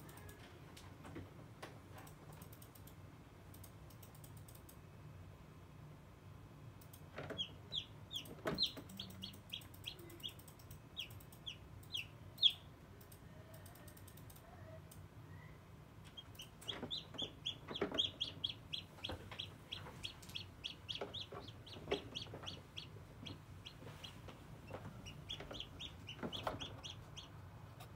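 Newly hatched chicken chick peeping in rapid runs of short, high, falling chirps. The first bout starts about seven seconds in, and a longer, denser one starts about sixteen seconds in.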